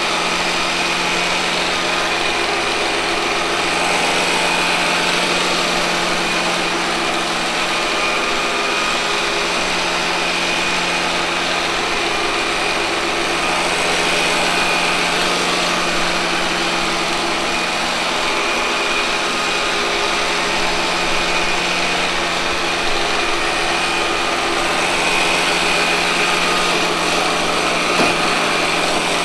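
Robot vacuum cleaner running steadily, its suction fan and brush motors giving a constant whirring hum with a high whine. A light knock sounds near the end.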